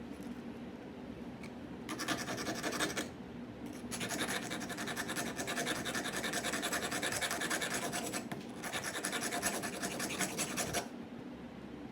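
Metal being filed by hand, rapid rasping strokes on a soldering-iron bit. A short burst comes about two seconds in, then a longer run of steady strokes for about seven seconds.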